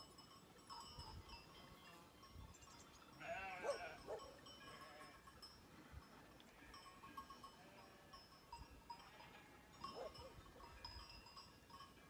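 Distant bleating of grazing livestock: one wavering bleat about three seconds in and a fainter one near ten seconds, over quiet hillside ambience.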